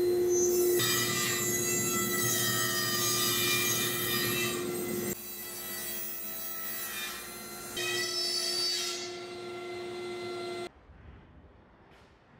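SawStop table saw ripping a long Sitka spruce stave along the fence: the blade and motor hum at a steady pitch while the blade cuts through the wood. The sound stops abruptly near the end.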